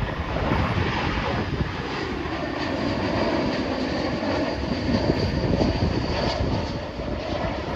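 Airbus A320-family jet airliner on low final approach, its engines giving a steady rushing noise with a faint high fan whine through the middle few seconds. Wind buffets the microphone.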